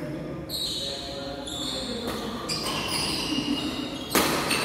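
Court shoes squeaking on the badminton court floor several times as players move, with footfalls and murmured voices underneath, and one short, loud sharp hit near the end.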